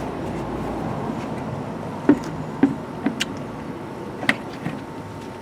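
Komatsu WB93 backhoe loader's diesel engine running steadily, with several short, sharp metallic knocks about two to four seconds in.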